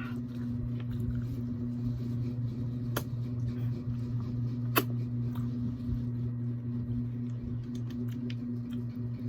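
Quiet eating and food-handling sounds with two sharp clicks, about three seconds and about five seconds in, over a steady low hum.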